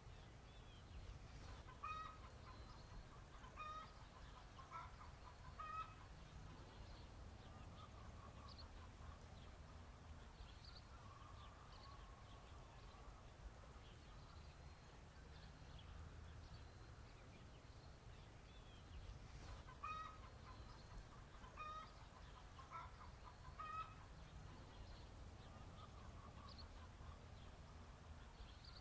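Chickens clucking faintly: short calls in two bunches, a few seconds in and again about two-thirds of the way through, over a low steady rumble.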